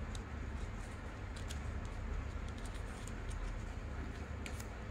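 A sheet of paper being folded and creased by hand: a few faint, scattered crinkles and taps over a steady low hum.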